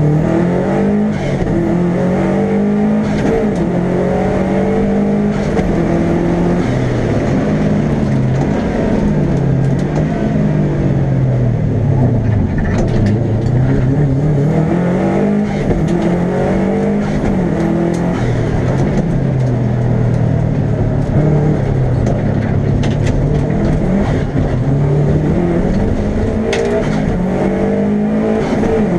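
Subaru Legacy RS Group A's 2.0-litre turbocharged flat-four boxer engine under hard driving, heard from inside the cockpit: the revs climb and drop back again and again with gear changes and lifts off the throttle.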